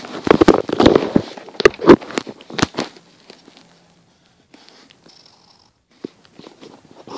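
Loud crackling and rustling right at the microphone from the camera and paper being handled, breaking up into a few sharp clicks about two seconds in, then mostly quiet with a few faint ticks.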